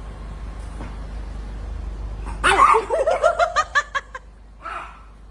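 A dog giving a quick run of about ten short, high yelping barks over roughly two seconds, starting about halfway through, with a fainter one near the end. A low steady hum runs underneath.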